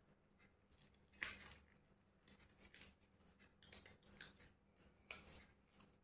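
Scissors cutting through folded invitation card, a few faint snips with quiet handling of the card between; the clearest snips come about a second in and again near five seconds.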